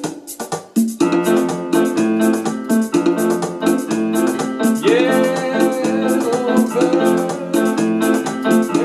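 Electronic arranger keyboard with its built-in merengue drum rhythm at 124 bpm. For about the first second only the drum pattern ticks, then left-hand bass notes and sustained chords come in on a string-piano voice; a higher wavering line joins about five seconds in.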